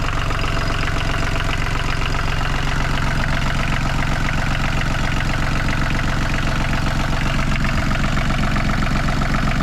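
Sailboat's inboard diesel engine idling steadily. It is being run just after an oil change and new oil and fuel filters, so the fresh oil fills the filter, with the fuel system bled of air.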